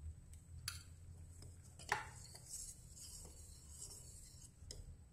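A steel spoon quietly stirring thick rice kheer in a steel pan, with a few light clinks of metal on metal, the sharpest about two seconds in.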